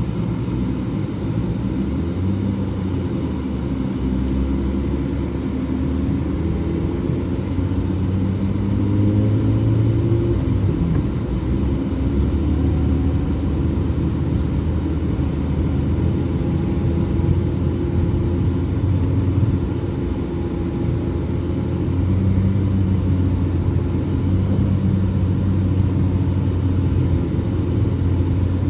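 BMW E36 car driving, its engine running with a low hum and road rumble. The engine note climbs for the first ten seconds or so, drops off, and then holds steady.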